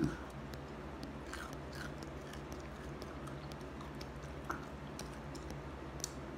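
A person chewing food close to the microphone, with faint scattered mouth clicks over a low, steady hum.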